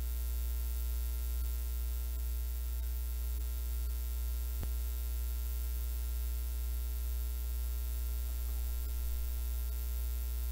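Steady low electrical mains hum, with one sharp click about four and a half seconds in.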